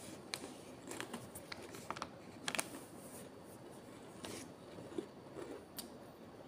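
Scattered crackles and clicks from a plastic biscuit packet being handled, with a crisp tea biscuit being chewed.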